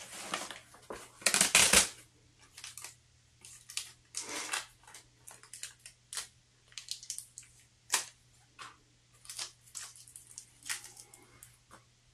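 Foam sleeve packaging around potted plants being handled, with irregular rustles, scrapes and small clicks; the loudest rustle comes about a second and a half in. A faint steady low hum underneath.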